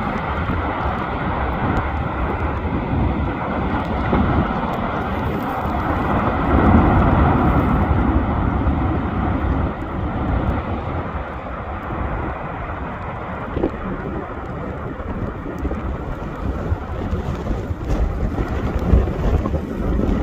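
Fagradalsfjall volcano erupting: a continuous deep rumbling roar from the lava explosions, swelling louder about six to eight seconds in. Wind buffets the unshielded microphone.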